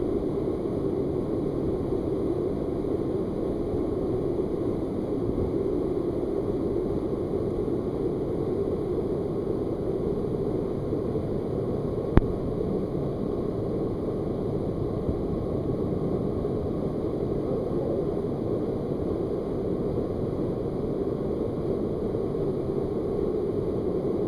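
Waterfall pouring through a narrow slot canyon: a steady rushing of falling water. A single sharp knock about halfway through.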